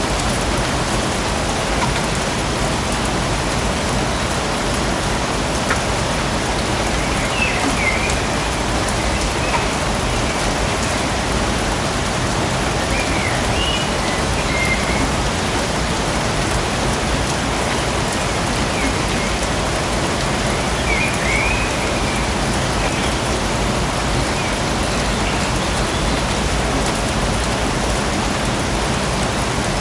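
Steady rain falling, an even hiss with no let-up, with a few brief high chirps here and there.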